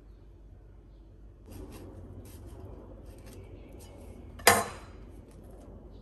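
Hands handling and cutting an avocado with a chef's knife: scratchy rustling and scraping of the skin and blade, then one loud, sharp knock of the metal knife on the counter about four and a half seconds in, followed by a few light clicks.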